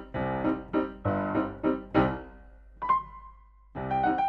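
Background piano music: a run of struck chords, each dying away. Near three seconds in they give way to a single held tone and a moment of quiet, then the piano comes back.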